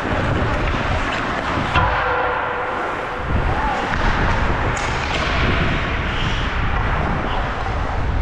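Ice hockey skates scraping and gliding on the ice under a steady rush of noise, with one sharp knock about two seconds in.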